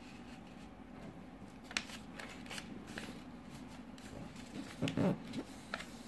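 A sheet of origami paper being folded and creased by hand: a few short, crisp rustles and taps, with a louder handling sound about five seconds in, over a faint steady hum.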